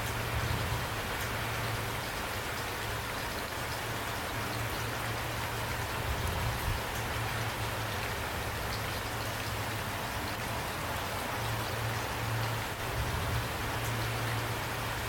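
Steady rain falling, an even hiss with scattered drop ticks over a constant low rumble.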